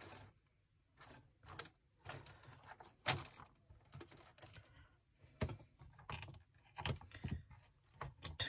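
Thin connecting wires being handled and fitted to the terminals of an electronics kit board: scattered faint clicks and short rustles, irregularly spaced.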